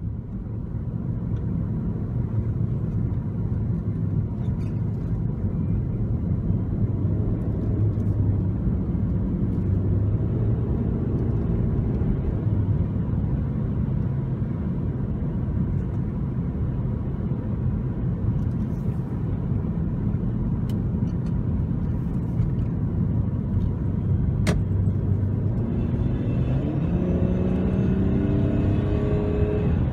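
A BMW E39 523i's 2.5-litre straight-six, heard from inside the cabin while driving, over a steady tyre and road rumble. The engine note rises as the car picks up speed a little after 10 s and again over the last few seconds.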